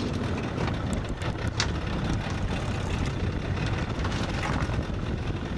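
Small boat's engine running steadily, a continuous low rumble.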